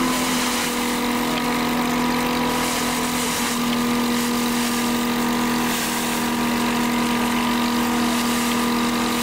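Threshing machine running steadily under load as sheaves of cereal are fed into it: a continuous mechanical drone at an unchanging pitch.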